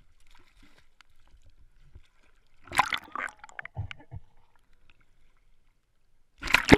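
Water splashing and gurgling around a waterproof camera as it dips under the river surface and comes back up. It comes in two loud bursts, one about three seconds in and a louder one near the end.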